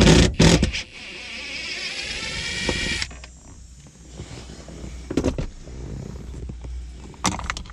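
Small electric motor whirring for about two seconds and cutting off abruptly, consistent with a cordless driver spinning out a bolt. Sharp clicks and knocks come just before it and a couple more near the end.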